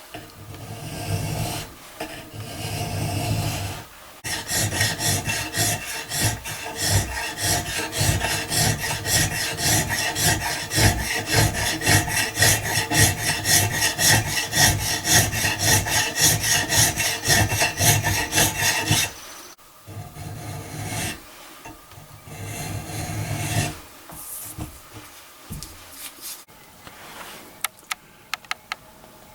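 Steel file draw-filing the barrel of a flintlock rifle, rasping strokes in quick, even succession that smooth waviness out of the barrel. The strokes run hard and steady from about four seconds in until a little before twenty seconds, then come fewer and quieter.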